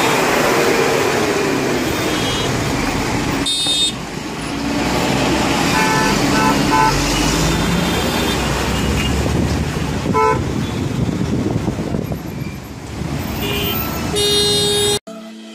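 Loud roadside traffic noise from a jammed highway, with vehicle horns honking again and again: a blast about three and a half seconds in, a run of short beeps around six to seven seconds, another near ten seconds, and more honking near the end.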